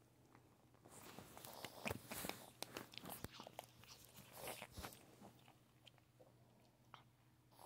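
Miniature pinscher chewing soft pieces of meat: a flurry of small wet clicks and smacks over the first few seconds, then a few fainter ones. Faint overall.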